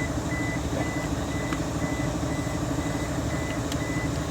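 A short high electronic beep repeating about twice a second, like a vehicle's reversing alarm, over a steady low engine-like drone, with a few faint clicks.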